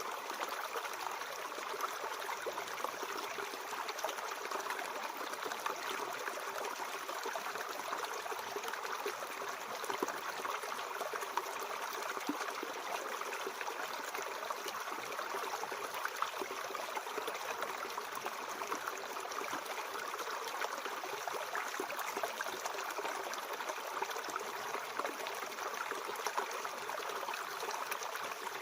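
Mountain stream flowing: a steady, even rush of water with little deep rumble.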